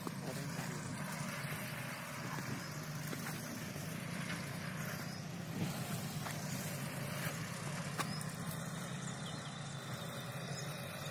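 Kubota B2441 24 HP mini tractor's diesel engine running steadily as it cultivates between crop rows, with a couple of brief knocks partway through.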